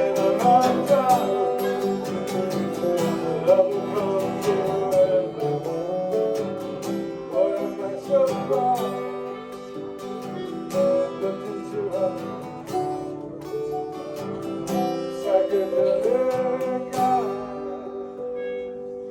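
Acoustic guitar played live with a plucked melodic line over ringing chords, with some gliding notes; the playing thins out near the end as the song closes.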